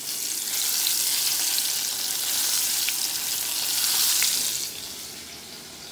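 Battered crab legs deep-frying in hot vegetable oil in a saucepan, just dropped in: a loud, steady sizzle with a couple of faint pops, fading near the end.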